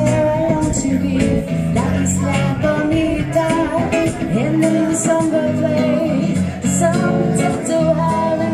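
Live solo performance: electric guitar played through a small amplifier, with a woman singing into a microphone.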